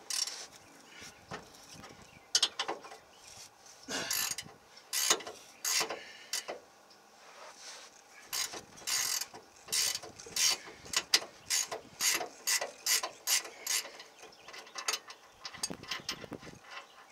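Socket ratchet wrench clicking as the lower bolt of a pickup's rear shock absorber is worked loose. Scattered strokes come first, then a steady run of about two to three strokes a second from about eight seconds in.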